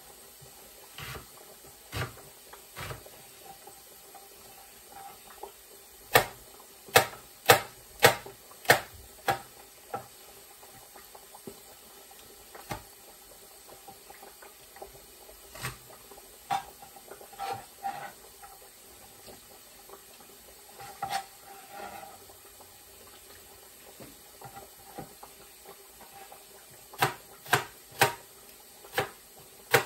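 Knife slicing an onion on a plastic cutting board: sharp knocks of the blade meeting the board, a run of about six strokes roughly a second and a half apart to two a second, then scattered single cuts, and a quick run of strokes near the end.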